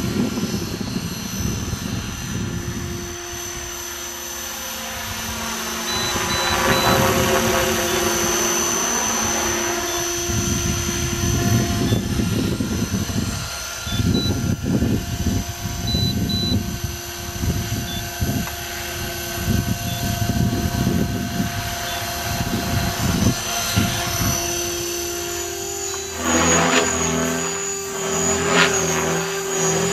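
Align T-Rex 500 electric RC helicopter flying: the whine of its electric motor and drive gears with the swish of the rotor blades. The sound swells and fades as it passes and manoeuvres, and the pitch shifts about 26 seconds in.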